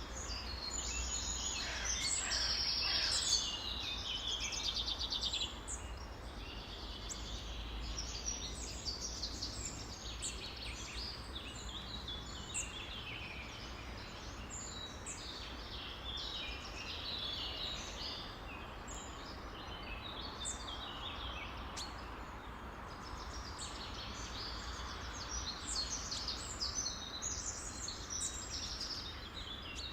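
A chorus of many songbirds calling and chirping over one another, with a fast rattling trill a couple of seconds in, over a steady low background rumble.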